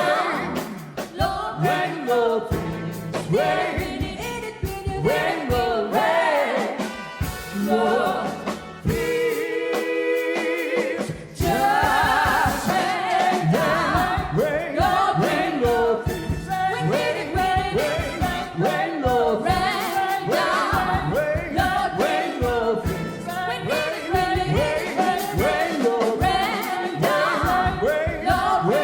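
Gospel vocal group singing wordless runs and ad-libs with instrumental backing, filling out and getting louder about eleven seconds in.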